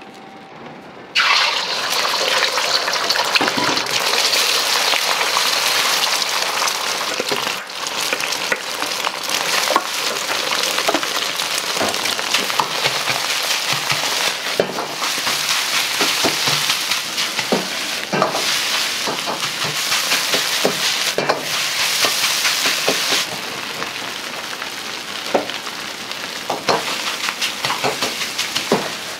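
Eggs hit hot oil in a carbon-steel wok with a sudden loud sizzle about a second in. Steady frying follows as egg and rice are stir-fried, with the metal ladle scraping and knocking against the wok. The sizzle eases somewhat near the end.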